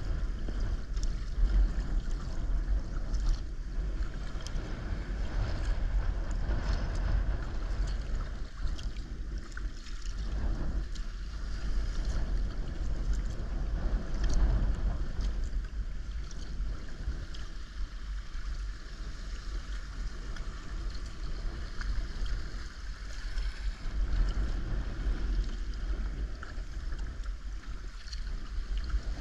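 Water splashing and lapping around a moving sea kayak's hull, with a steady low rumble of wind buffeting the deck-mounted camera's microphone and many small sharp splashes throughout.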